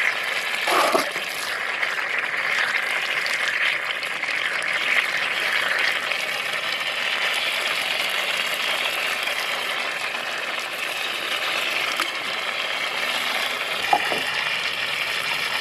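Water from a garden hose pouring and splashing steadily onto raw catfish cutlets in an enamel tray, with a hand rubbing the pieces under the stream.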